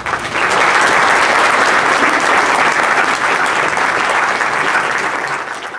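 Audience applauding, starting at once and holding steady, then dying away at the very end.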